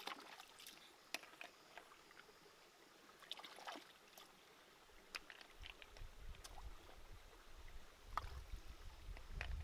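Shallow stream trickling faintly, with scattered small splashes and clicks as hands search among the submerged stones. A low rumble comes in about halfway.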